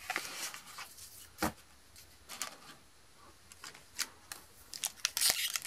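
Trading cards being handled and set down on a table: light rustles and taps, with a sharper tap about one and a half seconds in and a quick flurry of them near the end.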